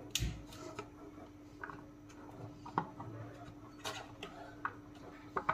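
A metal spoon clinking and tapping against a steel pan while cooking: irregular light clicks and knocks, over a faint steady hum.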